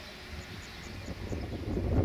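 Wind buffeting the microphone: a low rumbling rush that swells about a second and a half in. A faint run of high ticks, about five a second, sounds early on.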